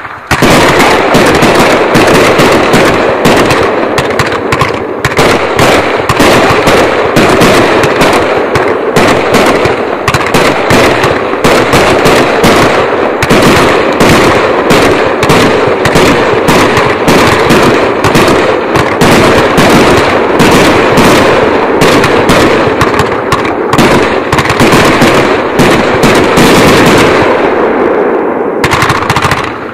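Pyro Demon 1,500 Gram Finale Series #2 consumer fireworks cake firing a rapid, unbroken barrage of shots and aerial bursts, many bangs a second. It dies down a few seconds before the end.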